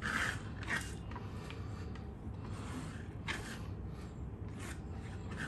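Brief soft scrapes and rustles as chopped coriander leaves are tipped into a bowl of mashed potato, about five short strokes spread through.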